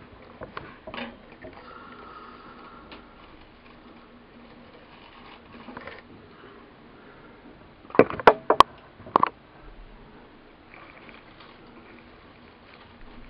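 Crumpled paper towel rustling as metal tweezers pull it out of a small plastic container, with small scattered clicks. A quick run of four or five sharp, loud clicks about eight seconds in, most likely the tweezers knocking against the plastic container.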